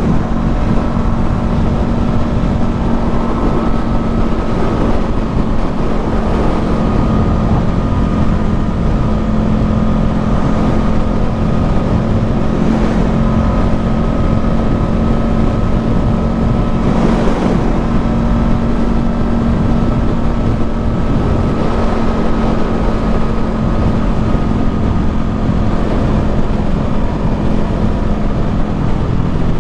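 Honda CB500F's parallel-twin engine running steadily at an even cruising speed, with wind rush. Around 13 and 17 seconds in, a swell comes and goes over the drone.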